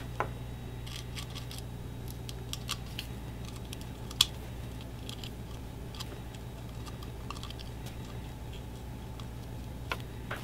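Faint, scattered small clicks and taps as a plastic camping-light housing is handled and a liquid electrical tape applicator dabs at the wires on its circuit board, with one sharper click about 4 seconds in. A steady low hum lies underneath.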